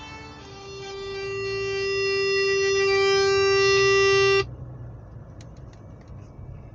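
Music: a long held final note, rich in overtones, that grows steadily louder and then cuts off abruptly about four and a half seconds in. A low, quieter background hum with a few faint clicks follows.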